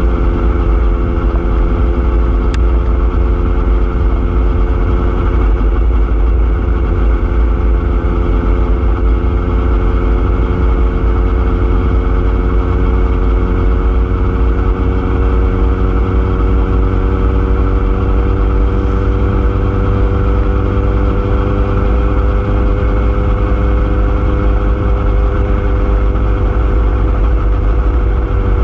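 A vehicle's motor running steadily while travelling along a road, its pitch rising slowly, over heavy wind rumble on the microphone.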